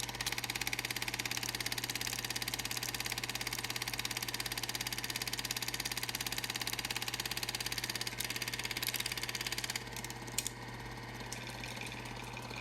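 A steady mechanical hum with a fast, even pulse; it gets a little quieter about ten seconds in.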